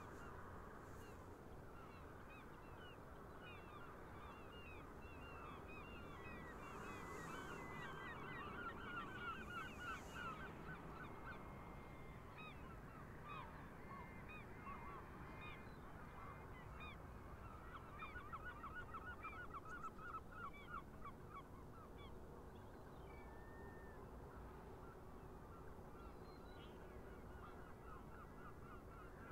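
A large flock of geese honking, heard faintly: a dense chorus of many overlapping calls that swells about a quarter of the way in and again past the middle.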